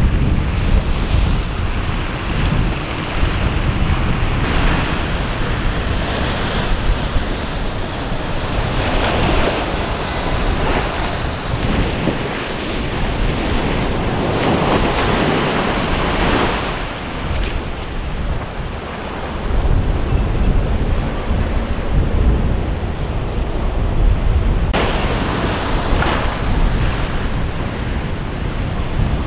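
Heavy hurricane-driven surf breaking and crashing, with louder surges every few seconds. Strong wind rumbles on the microphone throughout.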